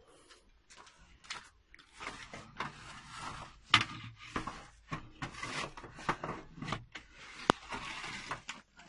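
A long wooden peel scraping and knocking a metal loaf tin across the floor of an earthen wood-fired oven to draw out the baked bread. It is a run of rough scrapes with a few sharp knocks, the sharpest near the middle and again near the end.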